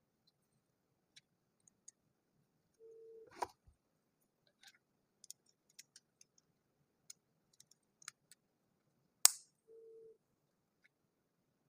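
Small plastic building blocks clicking and tapping as pieces are handled and pressed together, with a sharper snap about a third of the way in and a louder one near the end. Two brief steady low tones, each about half a second long, sound just before the first snap and just after the second.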